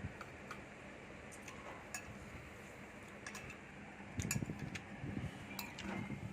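Eating at a table: light clicks and clinks of cutlery on dishes over a steady background hum, with a louder cluster of knocks about four seconds in and again between five and six seconds.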